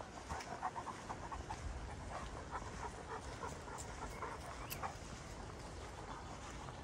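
Greater Swiss Mountain Dog panting in quick, rhythmic breaths.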